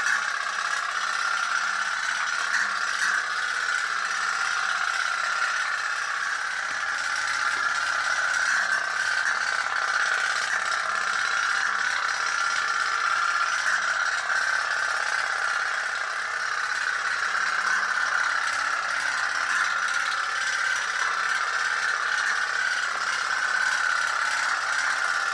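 Toy pop-pop steam boat running under candle heat: its boiler diaphragm flexes rapidly, a steady fast rattle.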